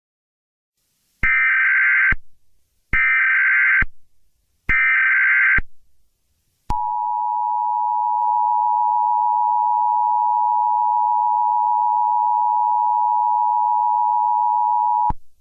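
Emergency Alert System tones: three short warbling SAME header data bursts about a second apart, then the steady two-tone EAS attention signal, held for about eight seconds before it cuts off.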